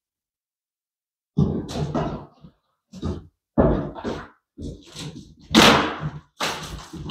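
Ceiling demolition: a run of irregular knocks, thuds and scraping clatter as ceiling boards are pried and torn down with a pry bar, starting about a second and a half in.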